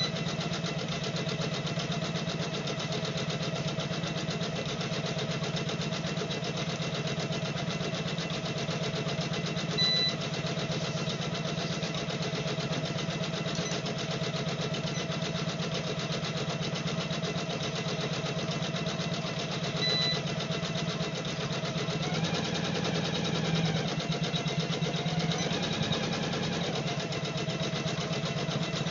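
Computerized embroidery machine running steadily, its needle stitching a fill pattern in a fast, even rattle. A short high beep sounds about every ten seconds.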